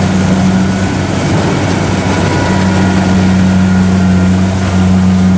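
Kubota DC70 rice combine harvester's diesel engine running steadily as the machine cuts rice and crawls through soft, sticky paddy mud, a deep even drone.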